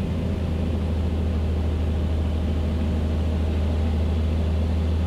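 Cockpit noise of a Beechcraft A36 Bonanza gliding in a banked turn, its engine pulled back for a simulated engine failure after takeoff. It is a steady low drone of engine, propeller and airflow.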